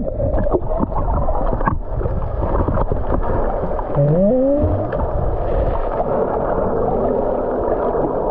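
Muffled underwater sound: sloshing water and bubbling with many small clicks and knocks, as picked up by a camera held under the water while snorkelling. A brief rising tone comes about four seconds in.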